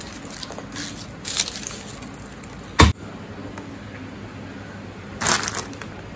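Garlic cloves being crushed on a thick wooden chopping block: small crunches, then one loud sharp knock on the block about halfway through. Near the end comes a short crackling rustle as a bunch of long green beans is handled.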